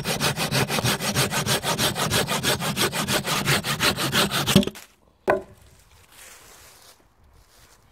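Folding pruning saw cutting an angled wedge off the end of a dead-wood branch, in fast, even back-and-forth strokes that stop about four and a half seconds in. A single sharp knock follows, then faint rustling.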